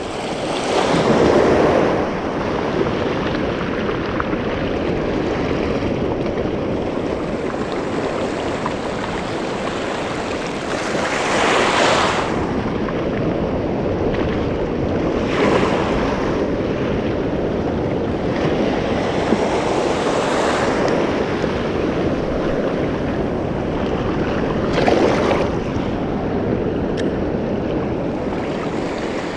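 Small waves washing over shallow reef water, a steady wash that swells louder every few seconds, with some wind on the microphone.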